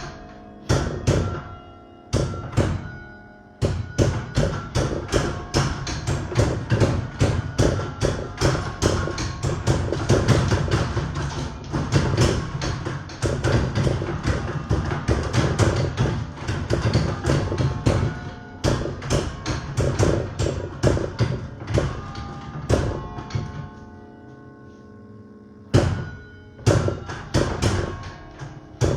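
Church tower bells played by hand, striking out a Christmas carol tune in quick succession, each stroke with a knock beneath it and the bells ringing on. The playing stops about 23 seconds in, leaving the bells to ring out, and starts again about 26 seconds in.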